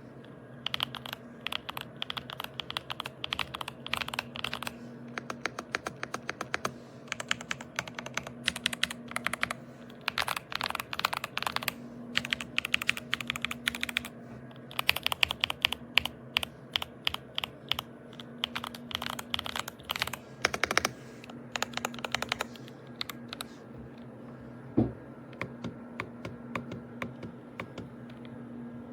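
Typing on a YUNZII B75 PRO gasket-mounted mechanical keyboard: fast runs of key clicks in bursts, stopping several seconds before the end, followed by a single louder knock.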